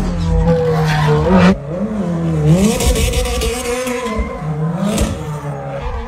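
Race car engine revving up and dropping off several times, with tyre squeal as the car slides through a drift.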